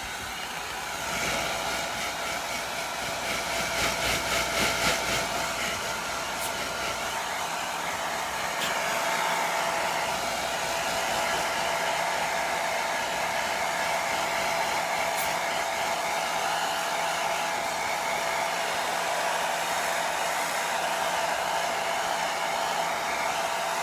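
Pet grooming blower running steadily on its low, cool-air setting, with a brief fluttering a few seconds in.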